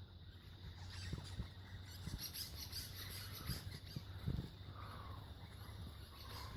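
Faint, scattered high chirps and chatter from a group of wild parrots, with a few soft low thumps.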